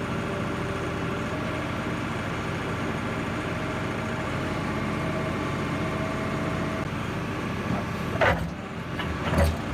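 Diesel engine of a backhoe excavator running steadily, with a couple of sharp knocks near the end.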